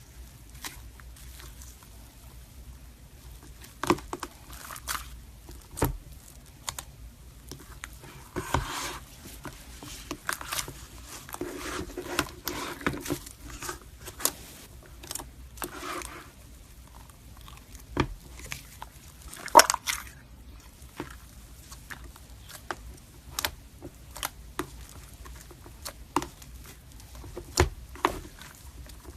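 Slime being squeezed and poked by hand, giving irregular sharp pops and clicks with a few longer wet squishy stretches.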